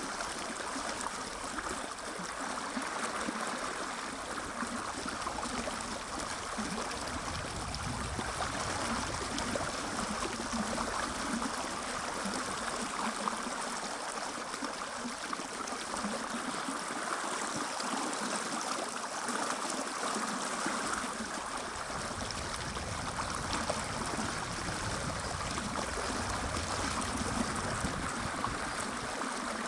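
Fast mountain river with a strong current rushing steadily over stones.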